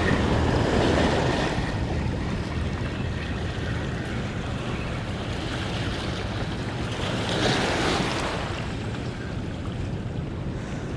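Steady rush of water released through the dam's open floodgates, with wind buffeting the microphone and a low steady hum beneath. The rush swells briefly about seven seconds in.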